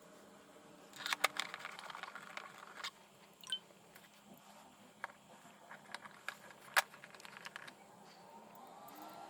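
Screws being driven into the plastic cover of a Bissell 16N5 upright vacuum cleaner: scattered clicks and taps of screwdriver and plastic parts, with a stretch of rasping and scraping about a second in.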